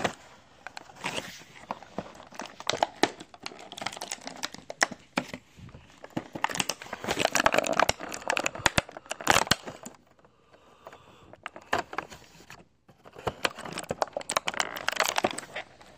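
Advent calendar packaging being handled: crinkling, tearing and clicking of the wrapping as a small toy piece is worked out of it, in two busy spells with a quieter pause between.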